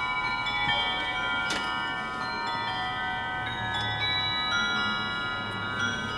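The Silver Swan automaton's clockwork music mechanism plays a chiming tune, with bell-like notes that start one after another and ring on over each other. A single sharp click comes about one and a half seconds in.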